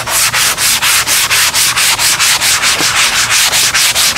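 Hand sanding with an 80-grit sanding block on a spackled model-airplane wing: a fast, even back-and-forth scrubbing, about five strokes a second.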